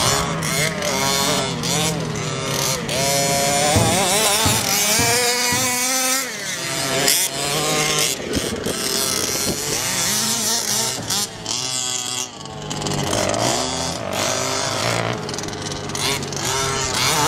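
Small two-stroke petrol engine of an HPI Baja large-scale RC buggy at racing speed, revving up and down over and over as the throttle is worked.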